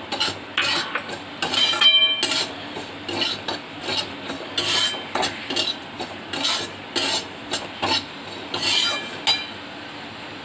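Steel spatula stirring and scraping semolina and ground coconut roasting in ghee in a metal kadai: repeated rasping strokes, about two a second, with a couple of ringing metal clinks against the pan, stopping just before the end.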